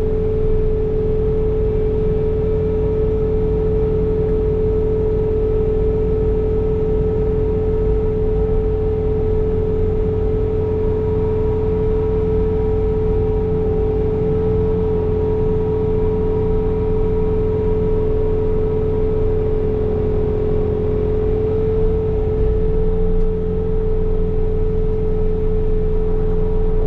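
Bobcat T66 track loader with a snow blower attachment running steadily at working speed: a diesel engine drone with a strong, unchanging whine on top.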